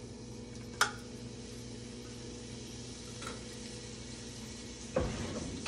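Chunks of raw Italian sausage frying gently in hot olive oil in a pan, a soft sizzle over a steady low hum. A sharp click about a second in and a heavy thump near the end.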